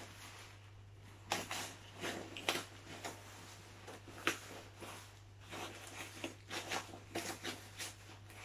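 Rustling and crinkling of a folded pop-up play tent's fabric as it is pressed into a bundle and bound with a rubber band, in irregular bursts with a few sharper crackles. A steady low hum runs underneath.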